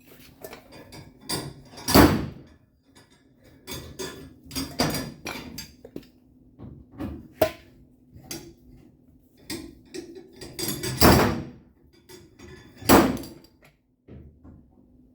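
Irregular knocks, taps and clatter of hand bodywork on a pickup's steel quarter panel, with three louder, slightly longer bursts about two, eleven and thirteen seconds in.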